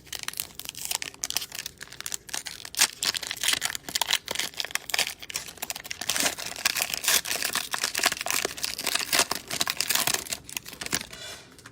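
Cellophane wrapper of a trading-card cello pack crinkling as it is torn open and handled, a dense run of irregular sharp crackles.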